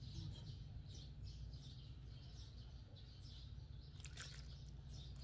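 Faint small birds chirping over and over above a low steady rumble. About four seconds in comes a short trickle of liquid as fish sauce is poured from a plastic bottle into a steel mixing bowl.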